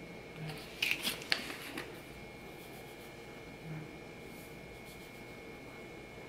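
A plastic spice shaker of garlic powder being handled: a few sharp clicks and rattles about a second in, then soft shaking as the powder is sprinkled over brownie batter in paper cupcake liners.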